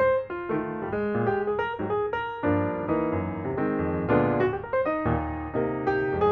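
Piano music: a light melody of quick notes over chords.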